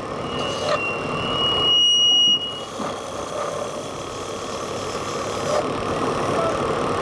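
Motor-driven wood lathe running while a hand chisel cuts a spinning wooden toy blank. A high, steady squeal rides over it for about two and a half seconds, loudest about two seconds in.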